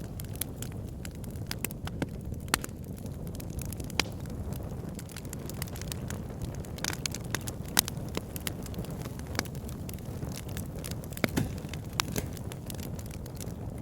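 Campfire burning: a steady low rush of flames under irregular crackles and sharp pops from the burning wood.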